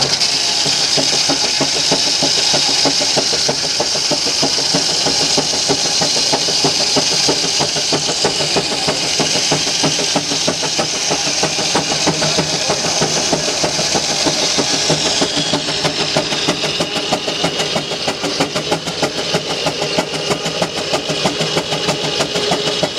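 Large belt-driven circular saw bench cutting through a log, the blade's high hiss over the fast steady beat of the driving engine. The hiss of the cut fades about two-thirds of the way through while the engine keeps running.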